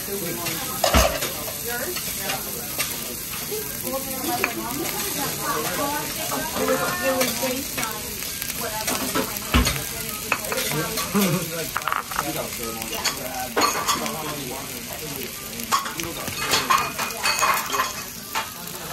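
Diced beef and garlic sizzling on a hot steel teppanyaki griddle, with metal spatulas scraping and clicking against the plate as the meat is stirred. Two heavier knocks of a spatula on the griddle, about a second in and near the middle.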